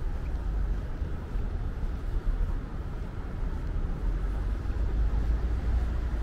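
Street ambience: a steady, deep rumble of road traffic.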